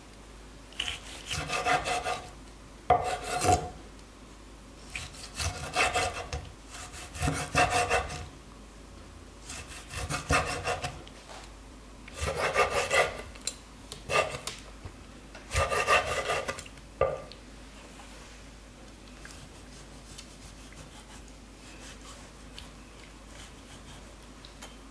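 Chef's knife slicing raw squid into rings on a wooden cutting board: short runs of quick cuts, the blade scraping and tapping on the wood, repeated about eight times and stopping roughly seventeen seconds in.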